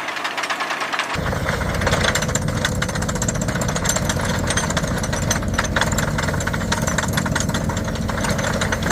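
Drilling rig boring into rock: engine running with a rapid, irregular knocking from the drill, turning much heavier and lower about a second in.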